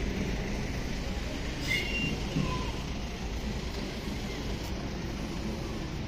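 Steady low background rumble of distant traffic, with a brief high-pitched squeal about two seconds in.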